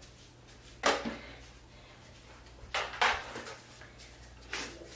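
A few short household knocks and clunks off to one side, about a second in, again around three seconds in and near the end, over a quiet room.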